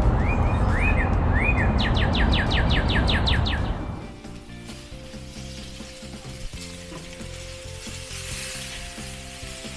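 A songbird calls over a steady rushing background: three rising whistles, then a quick run of about ten falling notes. About four seconds in it gives way to the quieter sizzle of T-bone steaks cooking on a gas grill, a little stronger near the end.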